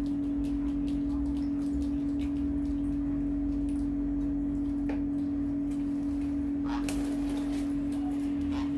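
A steady hum holding one tone, with scattered faint clicks and small splashes as young parrots bathe and step about in a shallow plastic tray of water.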